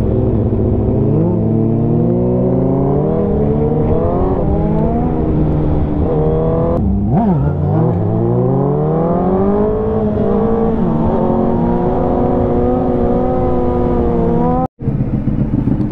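Motor vehicle engines revving and accelerating, with more than one engine's pitch rising and falling at once. The sound breaks off abruptly about halfway through and again briefly near the end.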